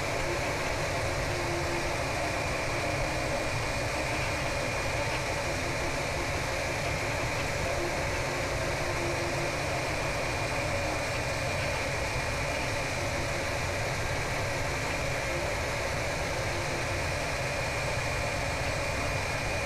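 EmBlaser diode-laser engraver running while it rasters an engraving: a steady whirring hiss from the machine, with faint short humming tones coming and going as the laser head moves back and forth.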